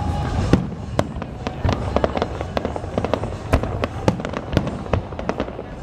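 Aerial fireworks shells bursting: an irregular run of sharp bangs and pops, several a second, that gets busier after the first second or so.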